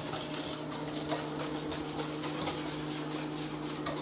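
Wire balloon whisk beating chocolate into an egg-yolk and sugar batter in a stainless steel bowl: rapid, even scraping strokes against the metal, over a steady low hum.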